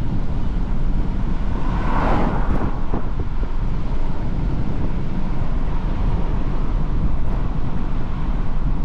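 Car driving on the road: a steady low rumble of engine, tyres and wind, with a brief louder swish about two seconds in.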